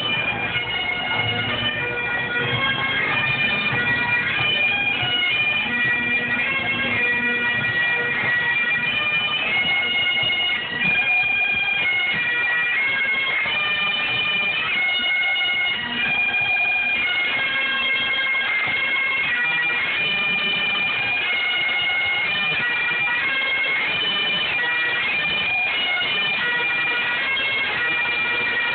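A pipe band's massed Great Highland bagpipes playing a tune together, the melody notes changing over a steady drone.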